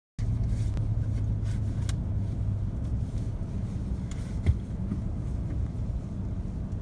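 Steady low rumble of a car in motion, heard from inside the cabin, with a few light clicks and rattles and one knock about four and a half seconds in. It starts abruptly just after the start.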